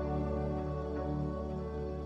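Soft ambient, new-age background music with sustained, held chords over a low drone.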